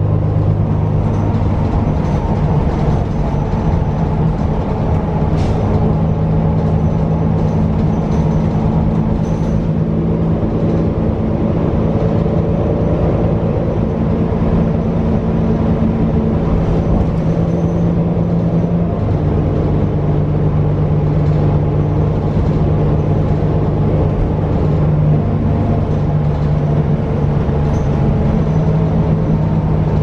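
Cummins L9 diesel engine and Allison B400R-6 automatic transmission of a New Flyer XD40 bus running under way, heard inside the passenger cabin as a steady, loud low drone. The engine note shifts to a new pitch about two-thirds of the way through.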